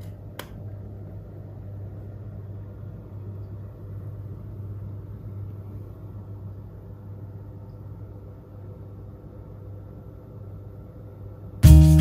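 Steady low hum with a few faint higher steady tones, and one short click about half a second in. Loud music starts abruptly just before the end.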